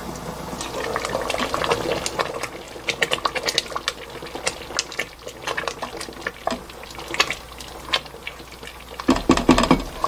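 Thick cudrania-and-cranberry jam bubbling in a pot, with irregular sharp pops as thick bubbles burst, the spattering that comes as jam thickens. Near the end a denser run of louder pops and clicks.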